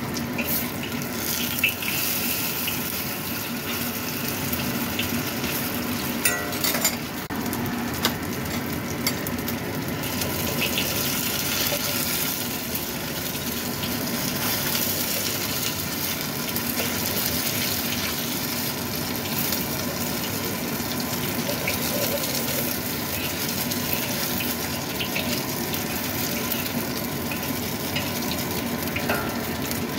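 Fish paste deep-frying in hot oil in a wok, a steady sizzle and crackle as it cooks until dry. There are a few sharp knocks and scrapes about six to ten seconds in.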